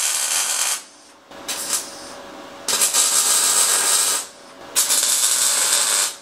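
MIG welder's arc crackling while tack welding steel, in bursts of a second or so with short pauses between them.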